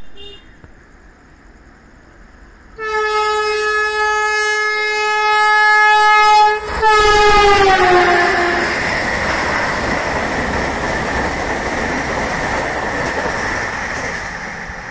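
Vande Bharat Express trainset sounding a long horn blast about three seconds in, with a brief break, its pitch falling as the train goes past at speed. Then the loud steady rush of the train passing over the track.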